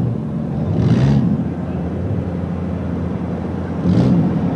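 Engines of a pack of demolition derby cars running and revving together, a steady low drone with two brief, louder surges about a second in and near the end.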